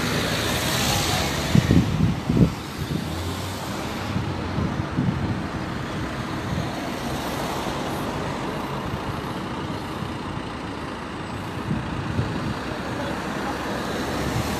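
Road traffic: cars driving slowly past close by, engines and tyres running steadily, with a few low thumps about two seconds in.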